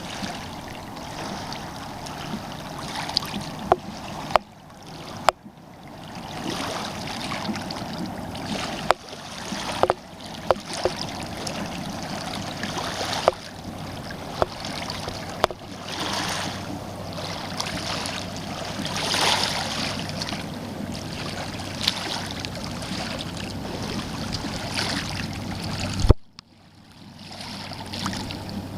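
Rushing river water and wind noise, with a faint low hum and scattered sharp clicks and knocks. A loud knock comes about 26 seconds in, and the sound drops out briefly after it.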